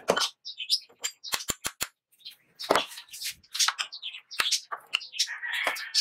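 Steel parts being handled on a bench vise: a mild-steel disc picked up and fitted onto a steel shaft clamped in the vise. Irregular sharp metal clicks and knocks, with a quick run of four ticks about a second and a half in and some scraping near the end.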